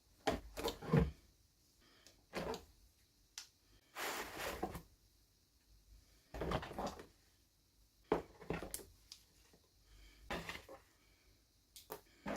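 Small toy packaging being handled and opened by hand: irregular clicks, taps and rustles. There is a longer rustle about four seconds in, and a few shorter bursts follow every second or two.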